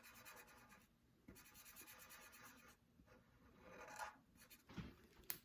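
Faint scratchy strokes of colouring on a paper worksheet, coming in spells with short gaps as a gumball is quickly filled in with turquoise.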